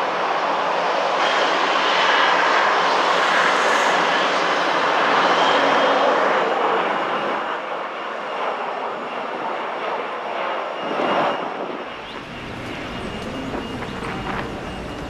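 Jet airliner engines as the plane comes in to land: a broad roar, loudest in the first six seconds and then fading. Near twelve seconds it changes abruptly to a lower rumble.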